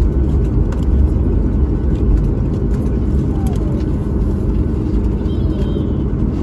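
Steady low rumble of cabin noise inside an Icelandair Boeing 737 MAX 9 on the ground after landing, with a few faint short chirps above it.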